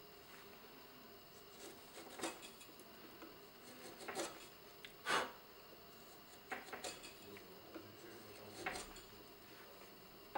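Hand carving tool paring the end of an oak organ key front: a handful of short, faint cutting scrapes a second or two apart, the loudest about five seconds in.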